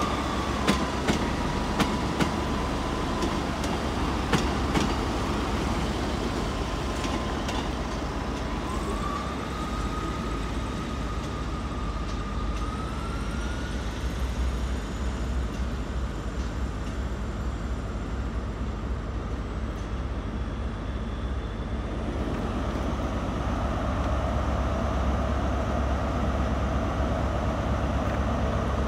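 Class 43 HST power car's diesel engine idling at a standstill, a steady low rumble with a thin whine that wavers in pitch over the first half. A few light clicks early on, and about two-thirds of the way through the rumble grows fuller and a little louder.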